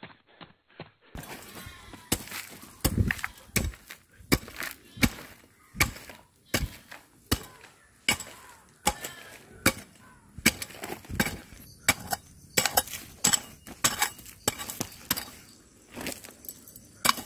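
A metal hoe chopping into hard, dry, stony soil, stroke after stroke at an uneven pace of one to three a second. The blade strikes grit and stones with a crunching clink, beginning about a second in.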